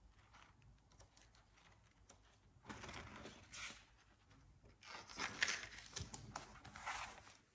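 Paper pages of a comb-bound booklet being leafed through: faint rustling in two stretches, about a third of the way in and again through the second half.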